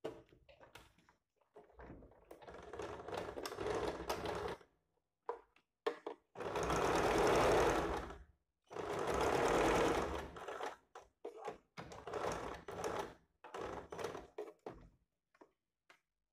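Sewing machine stitching fabric in stop-start runs: one run about two seconds in, two longer, louder runs between about six and ten seconds, then a series of short bursts with pauses.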